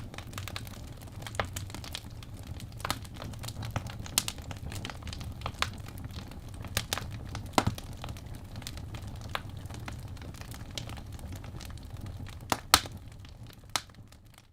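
Wood fire crackling in a fireplace: irregular sharp pops and snaps over a steady low rumble, the loudest pops near the end, then fading out.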